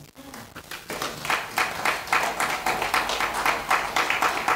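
Audience applauding, the clapping swelling over the first second.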